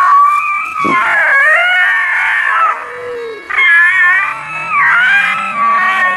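A pet animal yowling in a series of long, high-pitched, wavering cries, about four in a row with short breaks.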